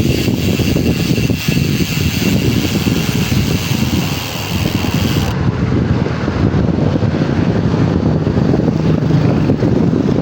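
Bicycle freehub buzzing while coasting on a Paps Pro 3 hub, a high even ratchet buzz that stops abruptly about five seconds in, under heavy wind rumble on the microphone.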